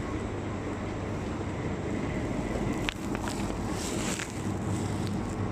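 Steady hum and hiss of store background noise, with a sharp click about three seconds in and a few light handling ticks after it.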